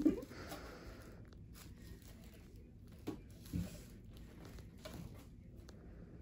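Quiet small exam room: a brief voice sound ends right at the start, then a few faint soft knocks and rustles, as from a stethoscope against a baby's back and the paper on the exam table.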